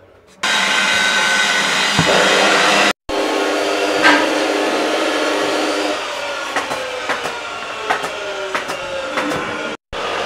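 Steady machine noise, broken by two brief dropouts. From about six seconds in, a slowly falling whine and scattered light clicks.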